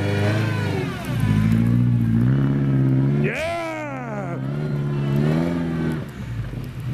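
Car engine revving in deep snow, with the pitch rising and falling, and a strong whine that climbs and drops about three seconds in, the sound of tyres spinning as the car tries to get through the snow.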